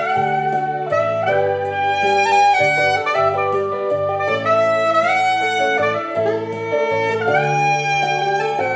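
Chempo curved soprano saxophone playing a slow melody of long held notes, over a backing track with low bass notes.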